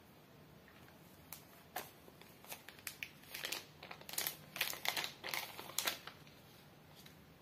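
Thin clear plastic protective film crinkling as it is peeled off a smartphone's screen: a run of quick crackles, densest from about three to six seconds in.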